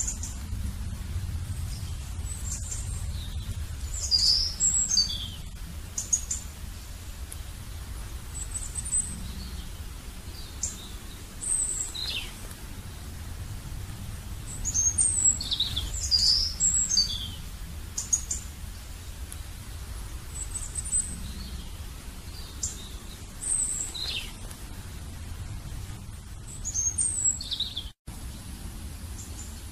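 Small birds chirping: short high calls, some in quick clusters, scattered throughout over a low steady rumble. The sound drops out briefly near the end.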